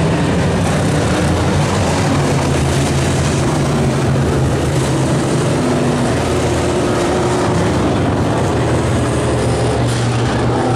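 Dirt-track modified race cars' V8 engines running together as a pack circles the track under a yellow caution flag, a steady loud drone with engine pitches shifting slightly as cars pass.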